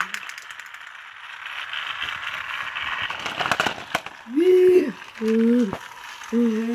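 Thomas Volcano Drop playset's steam effect hissing steadily, with fine clicks and rattles. It stops with a click a few seconds in. Three short steady tones, each under a second, follow near the end.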